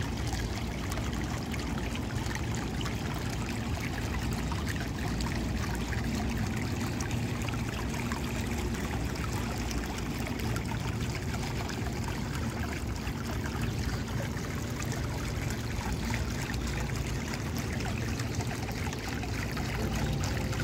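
Fountain water bubbling up from a small jet and splashing into a shallow pool: a steady rush and trickle of water.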